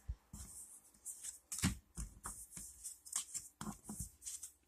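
A Yu-Gi-Oh booster pack being opened and its cards handled: irregular crinkles of the wrapper and soft clicks and slides of the cards.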